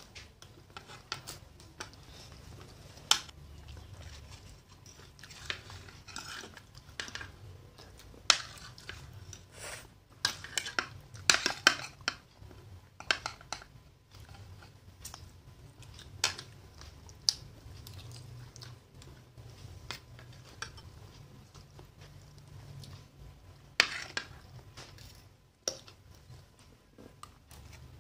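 Metal spoons and forks clinking and scraping against a plate while fried instant noodles are scooped up, with chewing in between. The sharp clinks come irregularly, most thickly about ten to thirteen seconds in.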